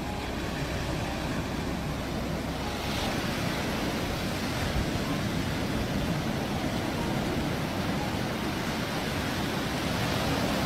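Ocean surf washing onto a sandy beach: a steady, even rush of noise.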